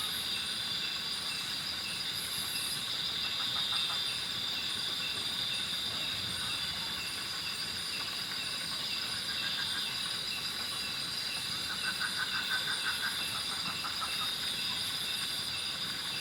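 Night insect chorus: a steady high-pitched drone with evenly repeating chirps above it. About twelve seconds in, a short run of lower pulsing calls joins in.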